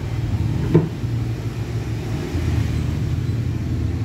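Corded electric hair clippers buzzing steadily as they cut a boy's short hair, with a brief tap a little under a second in.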